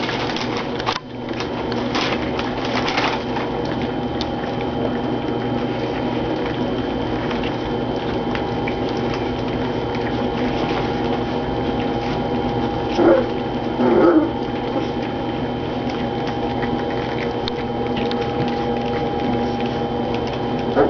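A litter of 3½-week-old F1 goldendoodle puppies eating wet puppy food, with constant lapping, smacking and slurping. Two short puppy whines come about thirteen and fourteen seconds in. A steady hum runs underneath.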